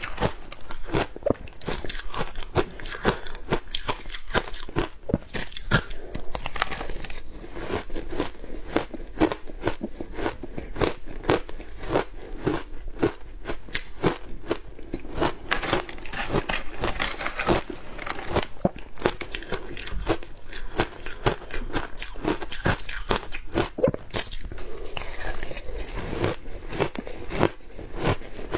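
Close-up crunching and chewing of shaved ice coated in matcha and milk powder: many sharp crunches a second, continuous, picked up by a clip-on microphone at the mouth.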